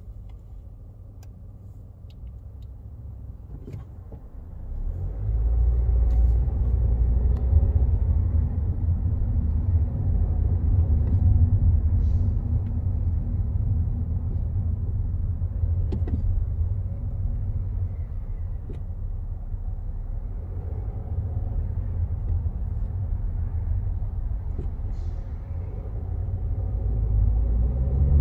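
Car driving heard from inside the cabin: a low, steady road and engine rumble. It is quiet at first and grows much louder about five seconds in as the car pulls away and gets up to speed.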